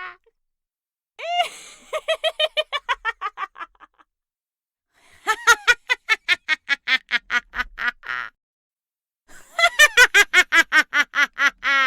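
Witch's cackling laughter in three bouts, each a rapid run of high-pitched "ha-ha-ha" pulses, about five a second, lasting two to three seconds, with short silences between.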